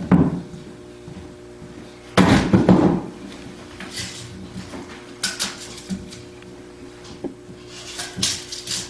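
Peeled log chair legs set down on a wooden workbench, with a few loud wooden knocks about two seconds in. Lighter clicks and clatter of a tape measure and pencil follow as the logs are measured and marked.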